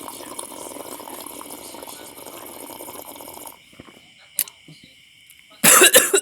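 Liquid pouring steadily for about three and a half seconds, over a steady high chirping of night insects. Near the end a person breaks into a loud, harsh cough, the loudest sound.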